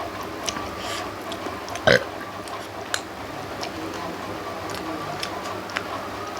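Close-up eating sounds: scattered small mouth clicks and smacks while chewing a meal of rice and fish curry, with one short, louder sound about two seconds in.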